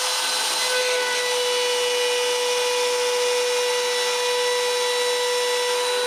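Inventables CNC router spindle running at speed while its small end mill cuts a profile into plywood: a steady whine over the hiss of the cut.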